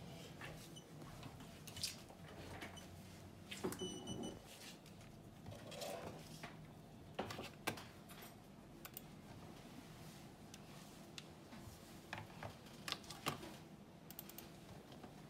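Scattered light clicks and taps of a computer mouse and small items being handled on a workbench, with a short high beep about four seconds in.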